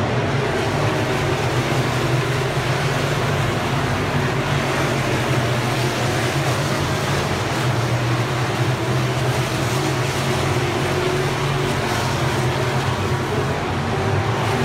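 Dirt-track race cars running at speed around the oval, making a steady, loud engine drone.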